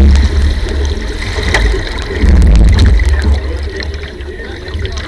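Water sloshing and gurgling against the hull of a 125cc hydroplane drifting with its engine off, with a low rumble that swells about two seconds in. The loud engine noise cuts out right at the start.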